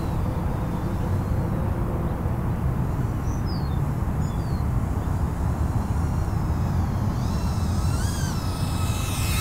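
Steady low rumble, with the motor whine of a 75 mm whoop drone wavering up and down over the last couple of seconds as the throttle changes, ending in a brief hiss as it passes close. A few short high chirps sound a few seconds in.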